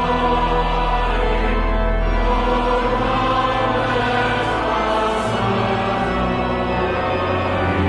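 Choir singing a hymn with pipe organ accompaniment in sustained chords over a deep held organ pedal note, in a large, echoing stone chapel.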